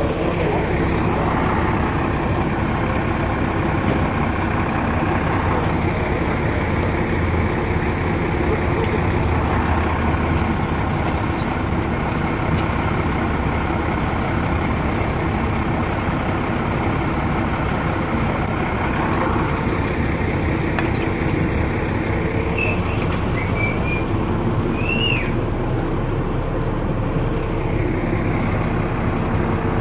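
Heavy truck engine running at a steady speed, a constant drone. A few short, high rising squeaks come in about three-quarters of the way through.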